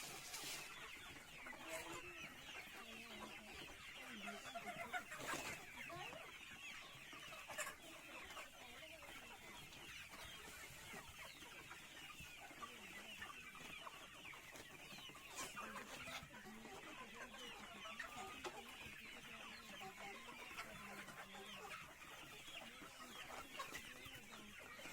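A flock of chickens clucking and chirping, many calls overlapping continuously, with a few faint clicks.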